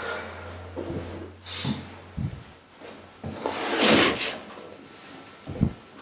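Clothing rustling and a body shifting on a padded treatment table as a patient is set up lying on his side for a spinal adjustment. A low hum stops about two seconds in, and a louder brushing sound comes about four seconds in.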